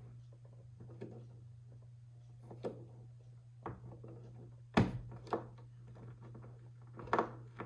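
Hand screwdriver turning a screw into the old wood of an antique clock case: scattered small clicks and creaks, with one louder sharp knock about five seconds in.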